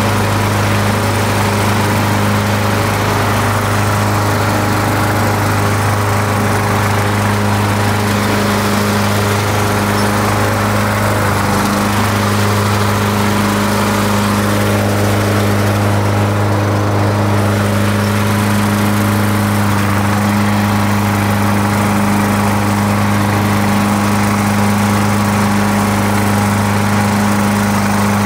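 Riding lawn mower engine running at a steady speed while mowing, a loud even drone that holds one pitch.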